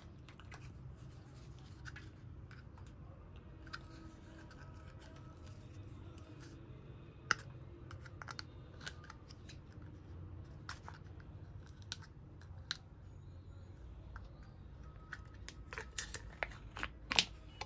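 Small clicks and taps of a purple Cadbury plastic cup being handled and its lid worked open, over a faint low hum, with a quick run of sharper clicks near the end.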